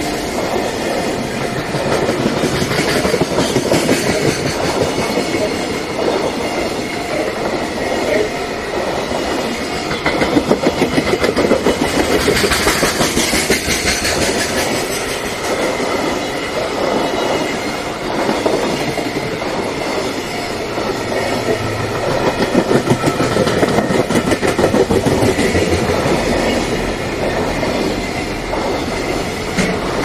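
JR Freight container train of Koki flat wagons rolling past, a loud steady rumble with the clickety-clack of wheels over rail joints.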